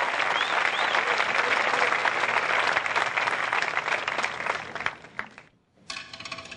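Large audience applauding, a dense steady patter that fades away about five seconds in, leaving a moment of near silence.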